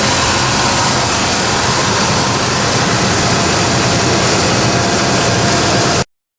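1997 Ford F-150 truck engine idling steadily. After treatment with Marvel Mystery Oil it runs without the lifter tick it had on cold starts, and to the owner it sounds pretty good. The sound cuts off abruptly about six seconds in.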